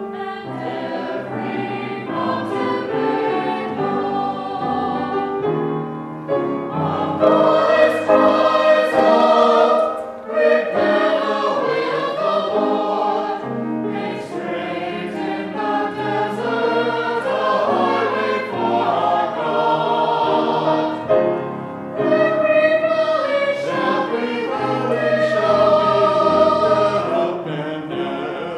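A small mixed church choir of men's and women's voices singing in parts, the phrases held and pausing briefly twice.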